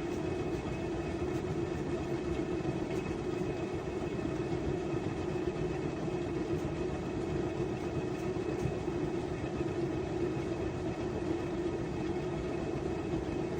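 Washing machine running: a steady mechanical hum and rumble that does not change in level.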